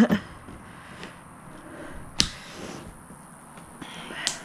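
Heavy-duty shears snipping through the thin rim of a white plastic plant pot, with two sharp snaps about two seconds apart as the plastic gives way.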